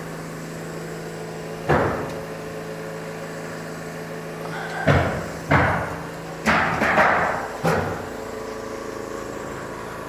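Six or so short, irregular knocks and bangs, most of them bunched in the middle, over a steady low hum.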